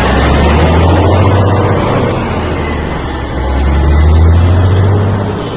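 Loud vehicle engine rumble with a deep low drone, swelling about a second in and again about four seconds in.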